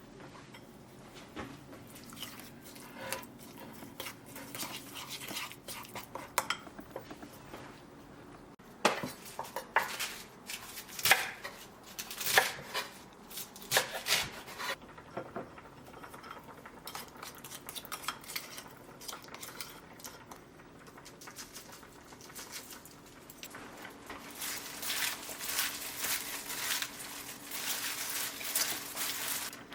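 Kitchen utensils and dishes clinking and knocking during food preparation. There is a cluster of sharp clinks about a third of the way in and rapid, dense clattering near the end, over a faint steady low hum.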